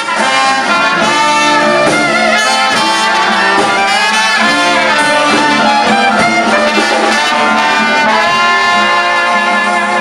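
Brass band playing jazz: trumpets and trombone carrying a melody over low sustained bass notes, steady and loud, starting abruptly after a cut.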